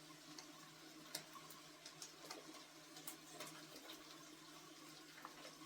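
Near silence: room tone with a faint steady hum and a few faint scattered ticks.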